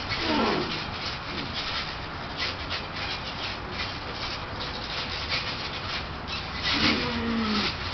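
Trampoline thumping and creaking as two people wrestle and bounce on it, over a steady noisy hiss. A short falling squeal comes about half a second in, and a longer one near the end.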